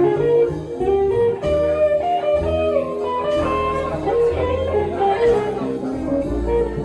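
A live band playing a slow blues, with an electric guitar playing a lead line of single notes over bass during an instrumental break.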